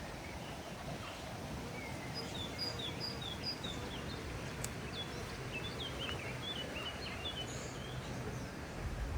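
A small songbird singing over a steady outdoor background hiss: first a run of five or six short, evenly spaced high notes, then a quicker, more varied twitter.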